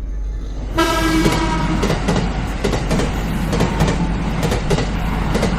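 Train running on the rails, a steady rumble with a rapid clatter of wheels over rail joints; about a second in a train horn sounds for about a second.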